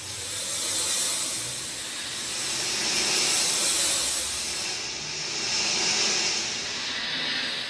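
Heavy rain falling, a dense steady hiss that swells and eases every couple of seconds.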